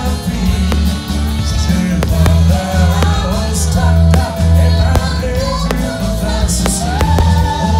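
A rock-style song: a sung melody over heavy bass and a steady drum beat.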